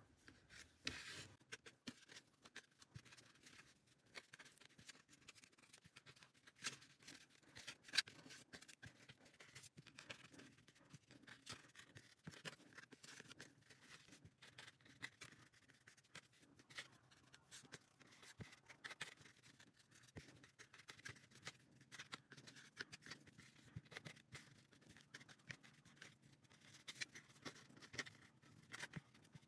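Faint rustling of macrame cord being pulled and plaited by hand on a wooden board, with scattered light taps and ticks, one a little louder about eight seconds in.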